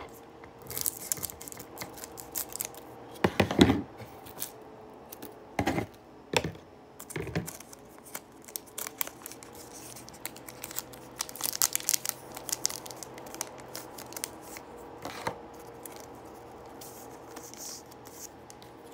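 Foil Pokémon booster pack being cut open with scissors and pulled apart: the foil wrapper crinkles and tears, with a few sharp clicks and knocks, the loudest about three and a half seconds in.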